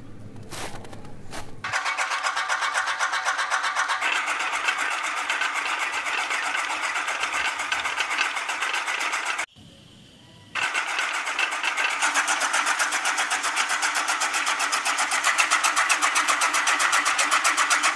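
Small electric toy motor running a model chaff cutter through a rubber-band belt, making a fast, even rattling whir. It cuts out for about a second around the middle and then starts again.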